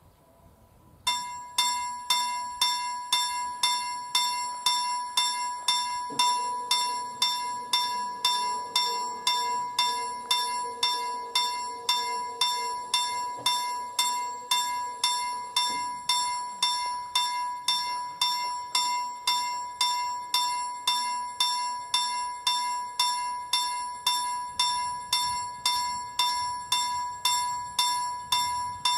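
Swedish level-crossing warning bell starting up about a second in and then ringing steadily, about two strikes a second with the tone ringing on between strikes. Only one bell is heard: it sounds like the crossing's other bell is dead.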